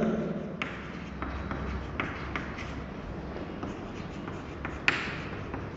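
Chalk tapping and scratching on a chalkboard as a line of words is written, in short irregular strokes, with a sharper tap about five seconds in.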